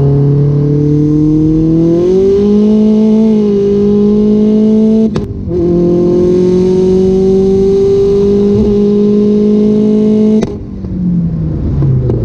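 Big-turbo VW Jetta's engine pulling hard under acceleration, heard from inside the cabin. It climbs slowly through one gear, breaks briefly with a click for a shift about five seconds in, and climbs through the next gear. About ten seconds in it lets off and drops to a lower note.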